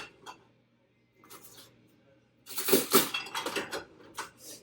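Kitchen pans and utensils clattering as they are handled, in several bursts, the loudest and longest from about two and a half to four seconds in.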